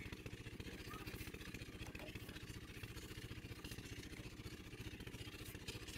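A small engine running steadily at a constant speed, a rapid, even chugging, with a few faint light knocks over it.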